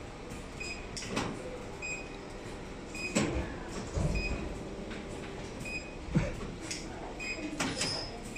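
Factory floor background: a steady machine hum with irregular knocks and clatters, the loudest about three and six seconds in, and a short high beep repeating about once a second.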